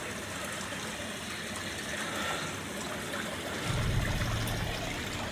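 Steady rushing noise with no distinct events; about three and a half seconds in, a low rumble joins it.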